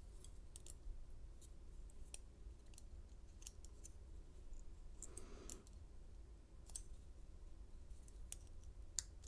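Faint, irregular light metallic clicks as a Master Lock 930 pin-tumbler cylinder and plug are worked by hand while the lock is being gutted. One sharper click comes near the end.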